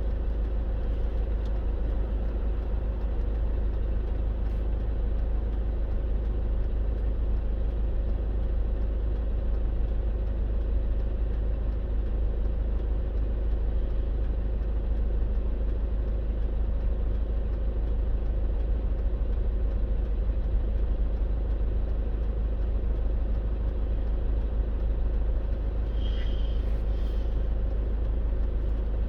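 Steady low drone of a car being driven, engine and road noise running evenly. Near the end comes a brief high-pitched sound, twice in quick succession.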